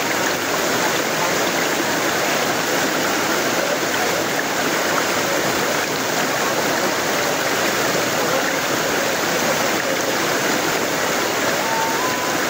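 Spring-fed stream rushing steadily over rocks in a small whitewater cascade.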